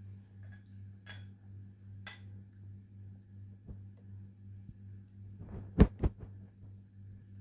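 A steady low electrical-sounding hum, with two light clicks early and two sharp thumps in quick succession about six seconds in.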